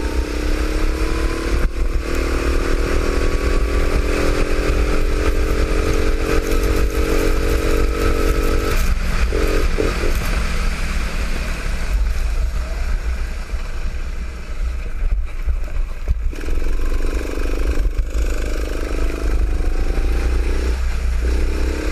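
Go-kart engine accelerating, its pitch rising steadily for about eight seconds, easing off about nine seconds in, then picking up and rising again in the last few seconds. A heavy steady low rumble runs underneath.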